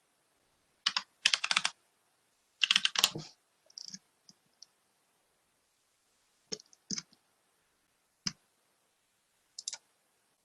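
Typing on a computer keyboard: short bursts of keystrokes in the first few seconds, then a few scattered single clicks with quiet gaps between.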